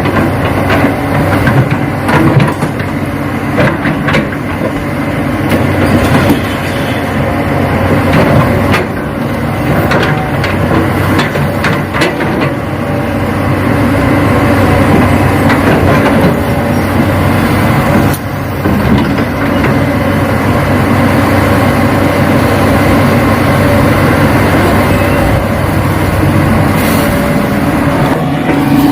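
Remote-controlled Hitachi model excavator running: a steady mechanical hum of its motors, with many sharp clicks and knocks, thickest in the first half, as it works the ground.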